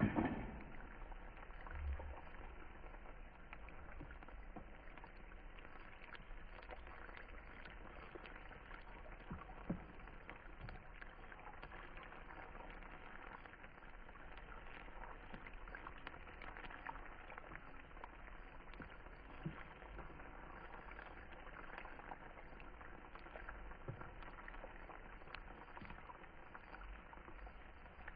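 Banana pieces frying in a pan of hot oil: a steady, faint sizzle full of small crackles, with an occasional louder pop.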